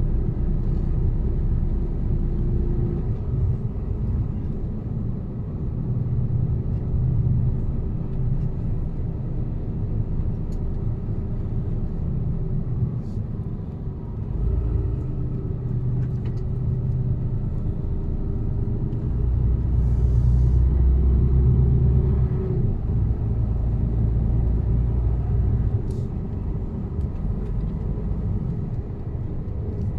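Mercedes-Benz Actros truck's diesel engine running steadily while the truck drives, a continuous low drone with engine tones that drift slightly up and down in pitch. A deeper, louder rumble swells for about three seconds around two-thirds of the way through.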